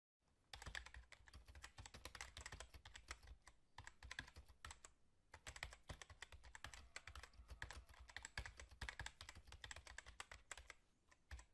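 Typing on a keyboard: rapid, irregular key clicks, with a short break about five seconds in.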